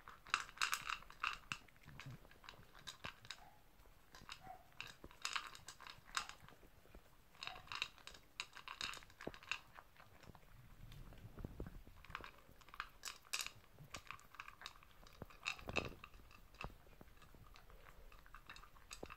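Toy poodle eating its dinner from a bowl: quick clusters of chewing clicks with short pauses between them, and a dull knock near the end.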